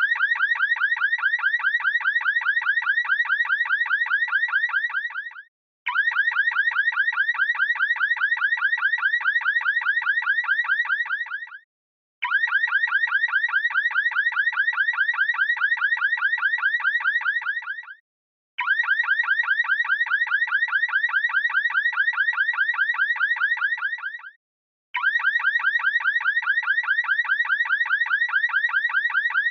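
Car alarm siren sounding a rapid warbling electronic tone in repeated bursts of about five and a half seconds, each fading out before a short half-second gap and starting again.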